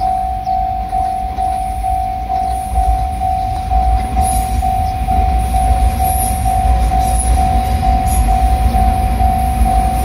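Japanese level-crossing alarm ringing its steady electronic ding about twice a second, while JR Shikoku limited-express electric trains (8000 series, then 8600 series) run through the crossing. The rumble of the train builds from about three seconds in, with high hiss and whine from the wheels on the rails joining about a second later.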